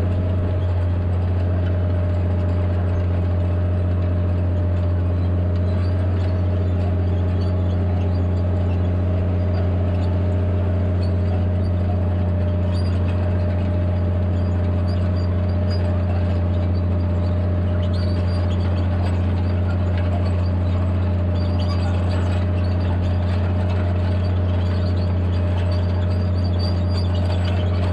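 Tractor engine running at a steady low drone, pulling a disc plough under load at a slow, even pace.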